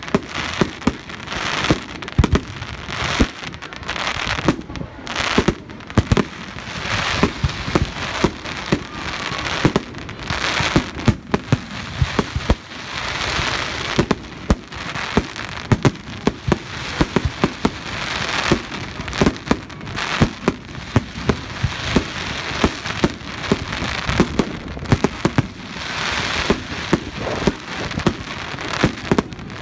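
Public fireworks display: aerial shells bursting in rapid succession, several sharp bangs a second, over a continuous crackle from the sparkling stars.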